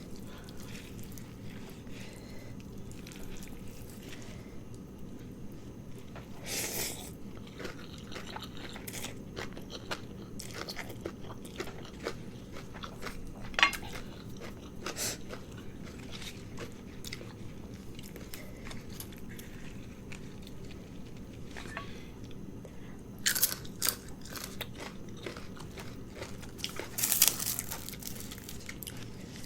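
A person chewing and crunching a mouthful of noodles with crunchy vegetables and peanuts close to the microphone, with scattered sharp crunchy bites, louder ones coming in clusters near the end.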